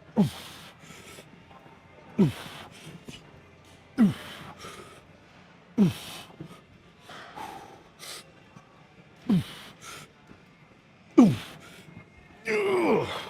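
A man's short, forceful exhales with a falling pitch, one about every two seconds, in time with fast leg-press reps; a longer strained groan near the end.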